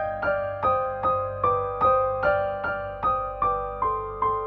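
Background music: a slow piano melody of single notes struck at an even pace, about two and a half a second, each ringing and fading before the next.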